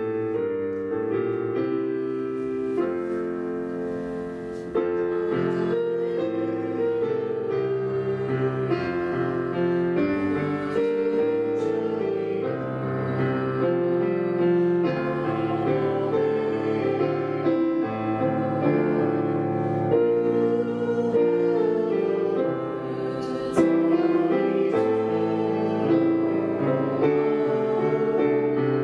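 Piano music with chords that change every second or so, played as the music leading into the gospel reading.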